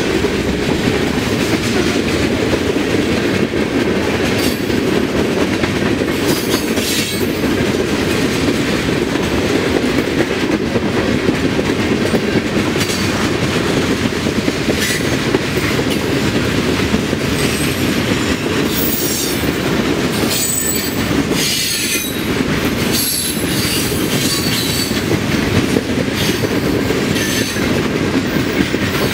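Freight cars of a long manifest train rolling past close by: steady noise of steel wheels on rail, with short high-pitched wheel squeals that come more often in the second half.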